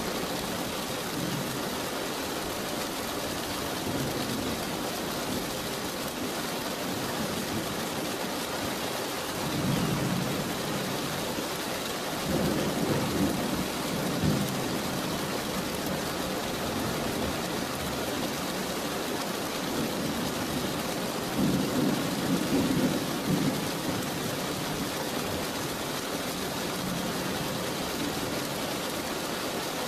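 Steady rain with three low rumbles of thunder, about a third of the way in, shortly after, and again around two-thirds through.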